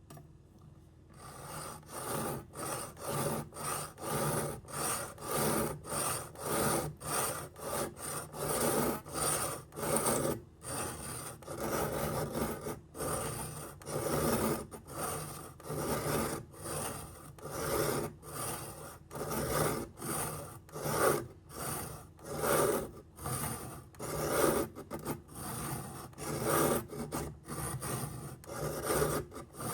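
A knife blade drawn back and forth across a sharpening stone in steady, repeated rasping strokes, about one and a half to two a second, starting about a second in.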